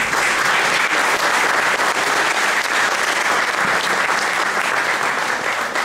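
Audience applauding, a steady dense clapping that begins to thin out near the end.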